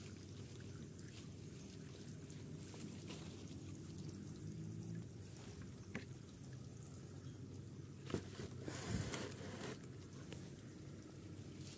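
Faint handling sounds over low steady background noise: light clicks as a mango cutting is trimmed, then a louder stretch of rustling and knocks about eight to ten seconds in as a plastic bucket of water is picked up and set down, the water sloshing.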